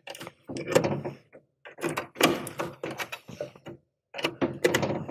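A flathead screwdriver pressing the release slots of a plastic spring-clamp AC terminal plug while wires are pushed into the terminals. Plastic clicks, scrapes and rattles come in several short bursts.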